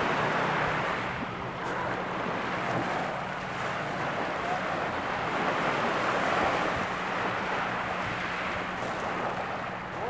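Small Mediterranean waves breaking and washing up a pebble beach, the surf swelling and easing every few seconds.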